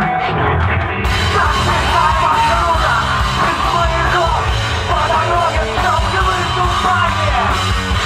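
Alternative rock band playing live and loud, a singer shouting and singing into a microphone over electric guitar and drums. The sound turns fuller and brighter about a second in.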